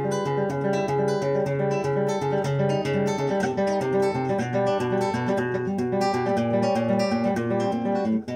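Classical guitar played solo: fast, driving runs of repeated plucked notes over sustained bass notes, with a brief break near the end.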